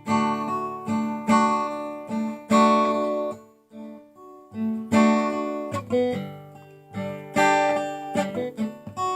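Acoustic guitar played alone, strummed chords that ring and die away, with a short pause about halfway through.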